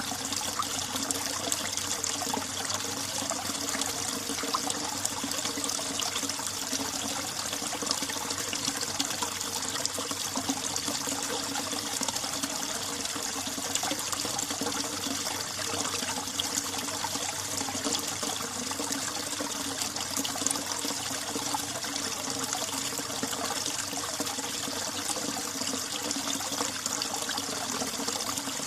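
Icy winter mountain stream running steadily, a continuous trickling and splashing of water.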